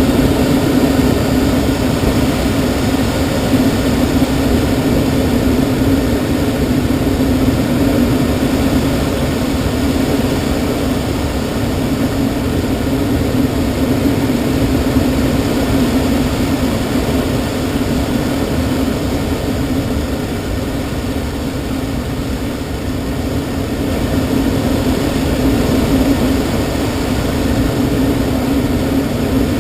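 Steady rush of airflow in a glider's cockpit during unpowered flight, with a low steady drone, easing slightly about two-thirds through.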